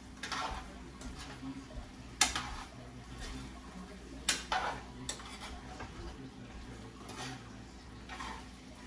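Utensil clinking and scraping against a cooking pot as food is stirred: about half a dozen short, separate clinks a second or two apart, the sharpest about two and four seconds in.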